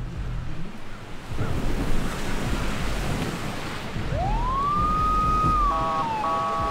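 Police siren on an unmarked car: about four seconds in it winds up to a held tone, then breaks into a quick stepped warble and winds down, a short burst to pull a vehicle over. A low rumble of car engines runs beneath it.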